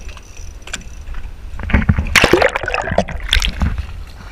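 Water splashing and sloshing hard against the side of a boat, from about a second and a half in until near the end, as a hooked fish thrashes at the surface beside the hull.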